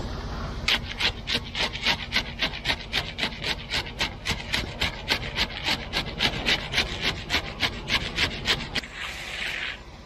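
Steel hand trowel scraped back and forth through wet concrete along the form board, a quick rasping stroke about four times a second, with one longer scrape near the end.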